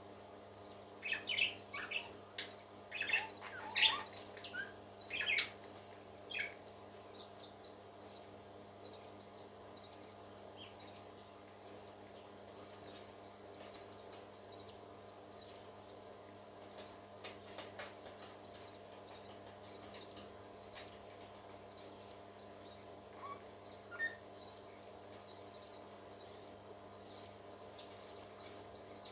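High-pitched peeping chirps of a parrot chick, a burst of them in the first six seconds and fainter scattered ones afterwards, over a steady low hum.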